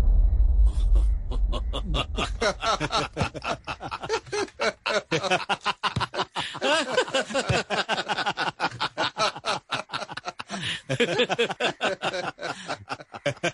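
Men laughing and chuckling in a long, continuous run of short laughs. A low drum-heavy music hit dies away in the first second.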